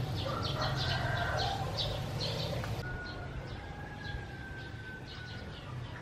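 Outdoor farmyard ambience: small birds chirping again and again, with a rooster crowing in the second half as one long call of about two and a half seconds, rising slightly and then falling away.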